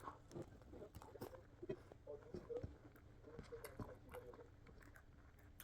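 Faint eating sounds: soft chewing with scattered small clicks.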